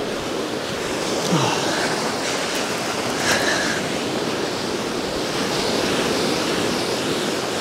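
Sea surf washing on the shore, a steady rush of waves.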